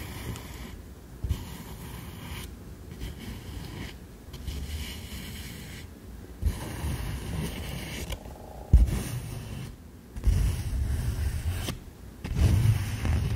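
Fingers rubbing and stroking autumn leaves close to a microphone: soft scraping and rustling of leaf blades, with irregular low thumps from handling near the mic, the sharpest a little under nine seconds in.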